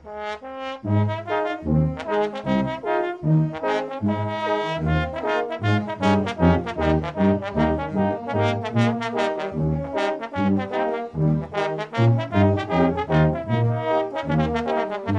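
Oaxacan brass band (banda de viento) playing a swing tune, with the trombone featured over a steady, evenly pulsed bass line.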